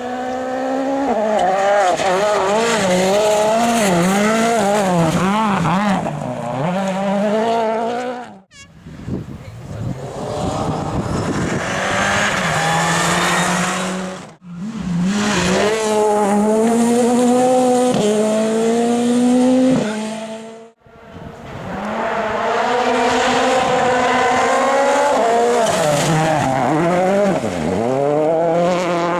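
Rally cars' engines revving hard on a gravel stage, pitch climbing and dropping sharply again and again as the drivers shift through the gears and lift off for corners. The sound comes in four separate runs, each one breaking off abruptly.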